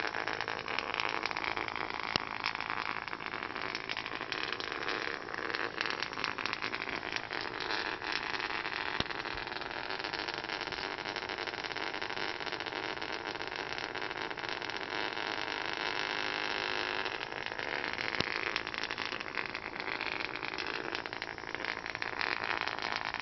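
A small vibration motor buzzing steadily and rattling against a wooden floor, with a dense stream of tiny clicks.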